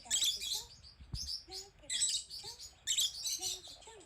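Rosy-faced lovebird chirping in loud high bursts about once a second, agitated calls of a bird panicking at the sight of itself on a screen.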